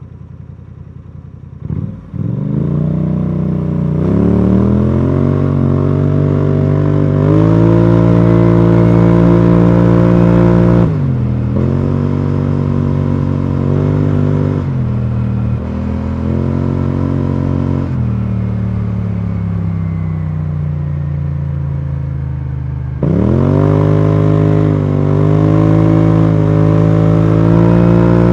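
BMW C650GT maxi-scooter's parallel-twin engine running through an Akrapovic exhaust. It pulls away about two seconds in and the revs climb, then hold fairly steady under the automatic transmission. The throttle is closed and reopened several times, with a deep dip and fresh climb near the middle and again late on.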